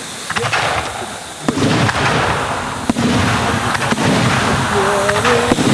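Lit ground firework spraying with a steady hiss and dense crackle, with scattered sharp pops; it grows louder about a second and a half in.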